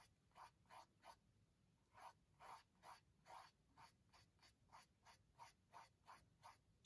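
Small paintbrush stroking paint onto a stretched canvas: a run of faint, short scratchy strokes, about two or three a second, with a brief pause about a second in.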